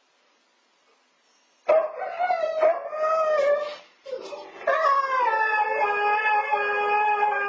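Siberian huskies howling. Silence for the first second and a half, then a wavering howl that breaks into short yowls, a brief pause about four seconds in, then a long, steady howl.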